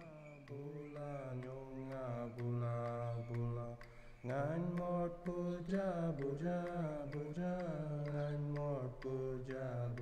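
Soundtrack music: a chanting voice sings a wavering melody over a sustained low drone. The drone breaks off briefly and comes back about four seconds in.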